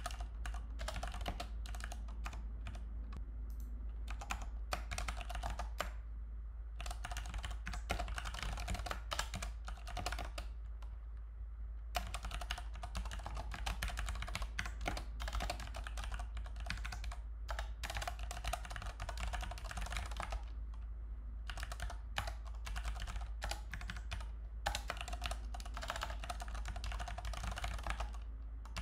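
Typing on a computer keyboard: runs of rapid key clicks broken by short pauses, over a steady low hum.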